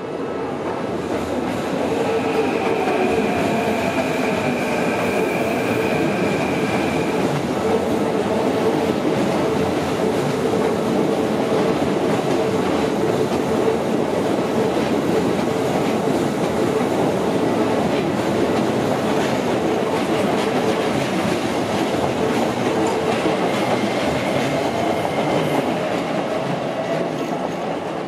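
Keikyu red electric train crossing a steel truss railway bridge: a steady rumble and rattle of wheels on rail that builds over the first couple of seconds and fades near the end. A high squealing tone sounds a few seconds in and again near the end.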